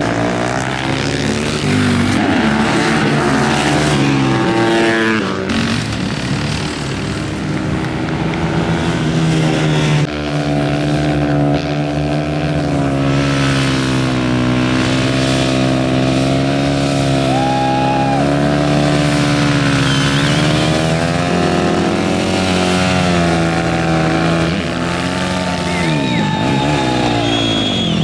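Supermoto motorcycles racing: several engines running at once, their notes rising and falling as riders rev, shift and pass, with a few sweeping changes in pitch near the end.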